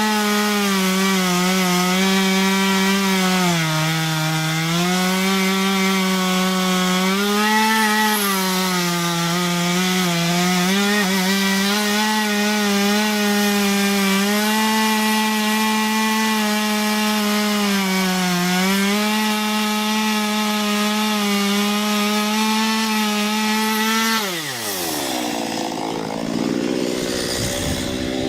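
Small chainsaw with a 15-inch bar cutting into an ash trunk at full throttle; its engine pitch sags several times as the chain bites under load. About 24 seconds in the throttle is released and the engine winds down to a lower, unsteady idle.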